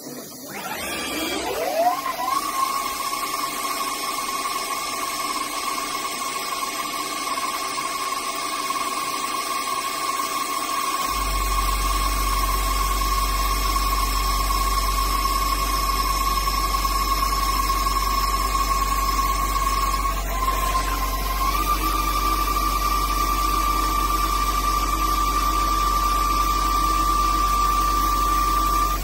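CNC lathe spindle motor spinning up with a rising whine, then running at steady speed while the lathe runs its roughing cycle. A low steady hum joins about a third of the way in. The whine dips briefly and steps up a little about two-thirds through.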